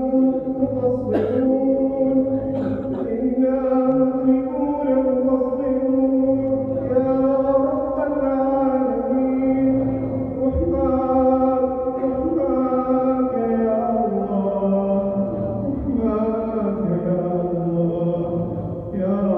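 An imam chanting a supplication in Arabic in a slow, melodic style: one male voice holding long notes that step slowly up and down in pitch.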